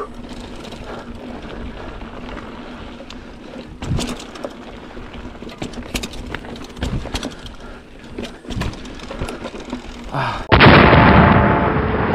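Low background noise with a few scattered knocks, then near the end a sudden loud boom cuts in and carries on as a heavy rumble with a few steady tones in it.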